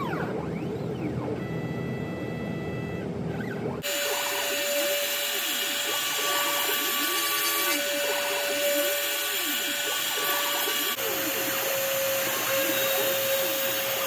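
CNC machine's compact router spinning a small bit through a pine board: a steady whine over a rushing noise, with the stepper motors whining up and down in pitch as the gantry moves. The sound changes abruptly about four seconds in and again about eleven seconds in.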